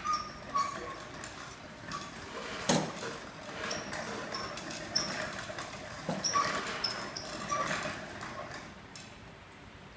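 Wooden silk-reeling frame turning as it draws thread from cocoons in a pot of hot water: irregular wooden clacks and knocks with short, high squeaks. Two of the knocks, about three seconds in and again about six seconds in, are louder than the rest.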